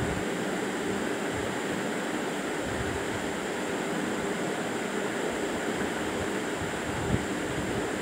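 Steady rushing background noise, like wind or moving air, with one small knock about seven seconds in.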